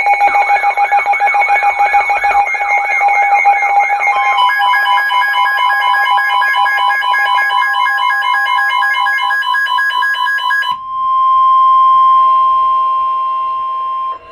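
Several electronic alert alarms beeping and warbling at once, one warbling about three times a second, then cutting off about ten seconds in; a single steady warning alarm tone follows for about three seconds, the weather radio alert tone that comes before a National Weather Service warning message.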